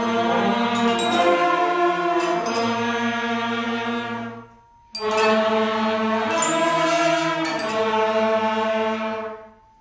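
Sixth-grade concert band of flutes, saxophones and trombones playing two long held chords together, each about four seconds, with a short break for breath between them.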